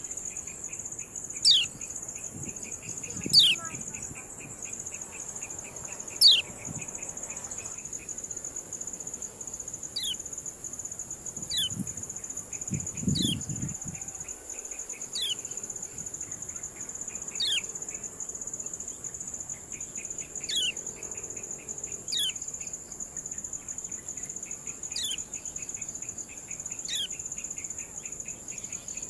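Kecial kuning giving its 'ciak' call: single sharp chirps sliding downward in pitch, repeated about every two seconds, the first few the loudest. A steady high insect drone and a pulsing buzz run beneath.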